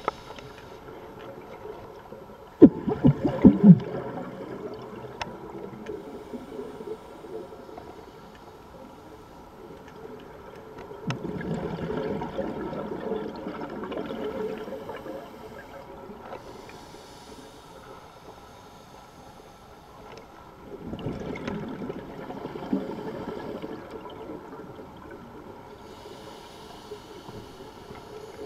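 Scuba regulator heard underwater: three long gurgling bursts of exhaled bubbles, roughly every eight to nine seconds, the first the loudest.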